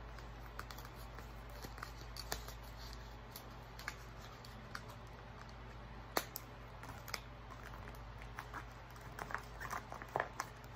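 Light clicks, taps and rustles of small things being handled close to the phone's microphone, coming thicker near the end, over a steady low hum.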